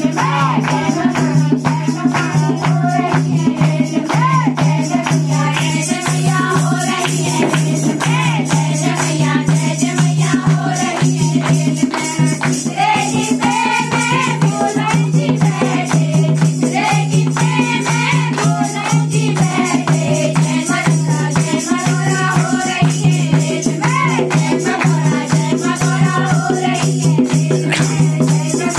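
A group of women singing a Hindi devotional bhajan to the goddess in unison, with hand clapping and a dholak drum keeping a steady beat.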